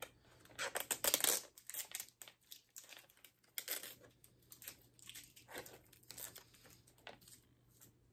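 A DVD case and its printed sleeve being handled: irregular rustling and crinkling of the packaging, busiest about a second in, with scattered smaller rustles after.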